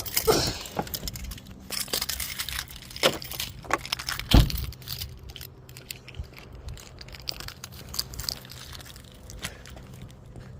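Jingling and rustling handling noise with scattered clicks, then one heavy thump about four seconds in; a faint steady hum remains afterwards.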